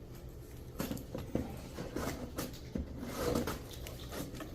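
Scattered light clicks and rustles of small objects being handled at a counter, over a steady low hum.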